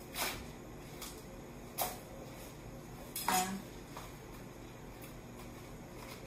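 Romaine lettuce leaves being handled, stacked and rolled on a wooden cutting board, with three short knocks and rustles about a second and a half apart.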